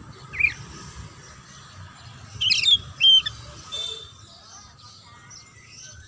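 White-rumped shama giving short, sharp calls: one about half a second in, a loud burst around two and a half seconds, another just after three seconds, then a brief buzzy trill near four seconds.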